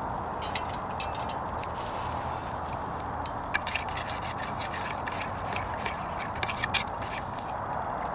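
Small wood fire crackling in a portable wood-burning camp stove: irregular sharp cracks and pops, a few clustered, over a steady hiss.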